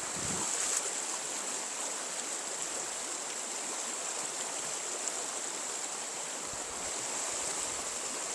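A small trout stream's water running steadily, an even rushing with a faint high hiss on top.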